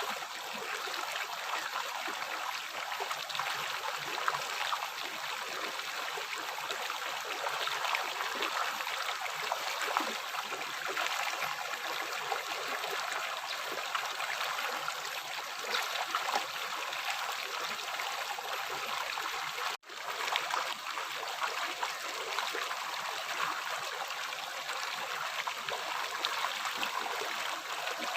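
River water flowing over rocks: a steady rushing with fine gurgles and small splashes throughout. The sound drops out for an instant about two-thirds of the way through.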